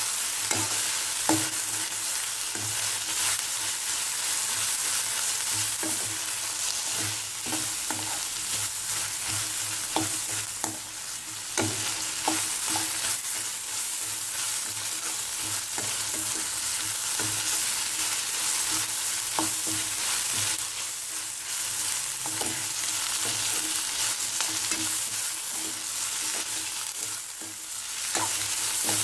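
Chopped onions and capsicum sizzling in oil in a stainless steel pan, stirred with a metal spatula that scrapes and clicks against the pan now and then.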